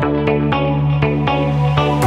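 Background music with a steady pulse of notes struck about four times a second over a held bass note.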